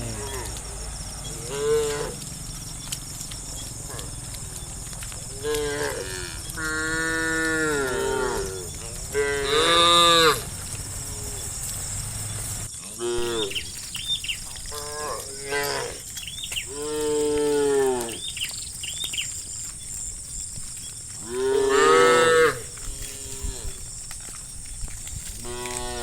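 A herd of cattle mooing: a dozen or so calls one after another, some long and drawn out, others short. The loudest come about ten seconds in and again near twenty-two seconds.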